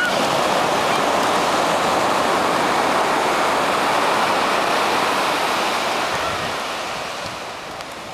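Ocean surf breaking and washing up the beach: a steady rushing hiss that grows quieter over the last couple of seconds.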